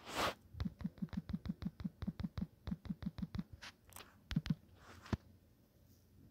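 Rapid fingertip taps on a Samsung smartphone's on-screen keyboard, about six a second, deleting a typed search query one character at a time, followed by a few scattered taps. A short rush of noise comes at the start.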